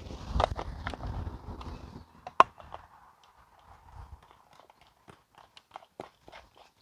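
Plastic water bottle and filter fittings being handled: a sharp plastic click about two and a half seconds in, then scattered small clicks and crinkles. A low rumble fills the first two seconds.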